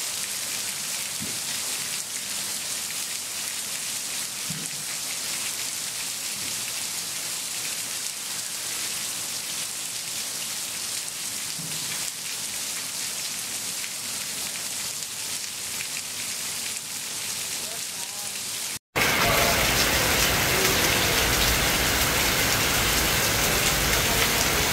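Heavy rain falling steadily, an even hiss of rain on leaves, roof and ground. About 19 s in it cuts abruptly to a louder stretch of downpour with more low rumble.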